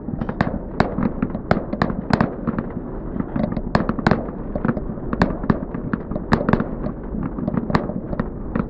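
Fireworks display: an irregular, rapid string of bangs and crackling reports from aerial shells bursting, several a second, over a continuous crackle.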